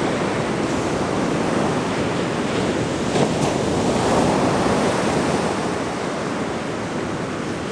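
Ocean surf breaking and washing up the beach in a steady rush, swelling a little around the middle as a wave breaks.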